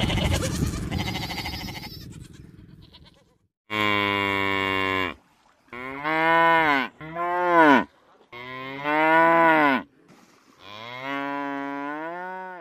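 Water buffalo lowing: five drawn-out moos starting about four seconds in, each about one to one and a half seconds long, most rising and then falling in pitch, the last one rising. Before them a noisy hiss fades out over the first three seconds.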